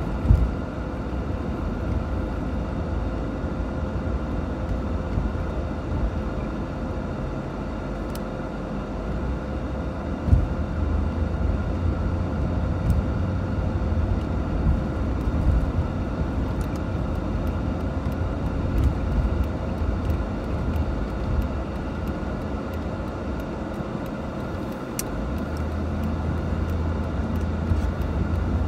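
Cabin sound of a 1989 Mercedes-Benz 560 SEL driving: steady low rumble of its 5.6-litre V8 and tyres on the road, with a couple of light thumps, one just after the start and one about ten seconds in.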